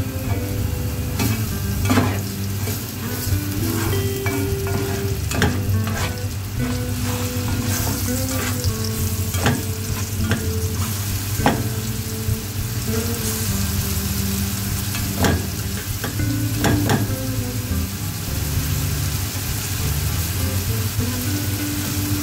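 Grated onion sizzling in hot oil in a nonstick pan, stirred with a plastic spatula that scrapes and now and then taps sharply against the pan.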